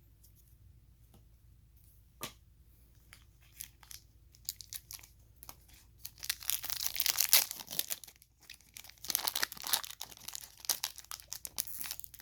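A trading-card pack wrapper being torn open and crinkled, in crisp bursts of rustling from about halfway through, after a few light clicks and taps.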